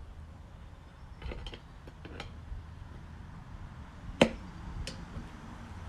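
Motorcycle tyre bead breaking away from the wheel rim with a single sharp crack about four seconds in, after a few light clicks of the bead-breaker tools being set in place.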